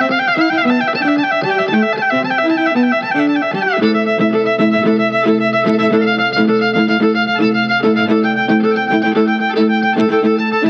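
Violin music with a quick run of notes that gives way, about four seconds in, to a steadier rhythmic figure over a low bass line.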